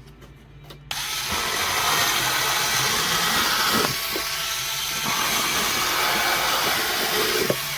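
VLOXO 4.2V cordless electric scissors running, switched on about a second in with a steady motor whir and no pause.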